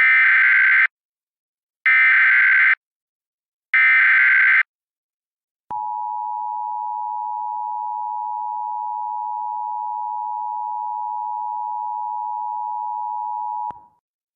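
Emergency Alert System signal: three short bursts of SAME digital header data, about two seconds apart, then the EAS two-tone attention signal (853 and 960 Hz sounding together), held steady for about eight seconds before cutting off.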